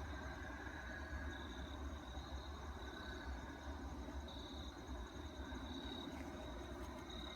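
A low, steady rumble from the night sky, of unexplained origin, which the listener likens to a bunch of airplanes flying around. Insects chirp on and off over it.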